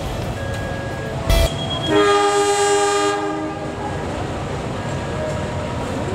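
A CC201 diesel-electric locomotive sounds its air horn once: a chord of several tones held for just over a second, over the steady low rumble of the locomotive. A single sharp knock comes just before the horn.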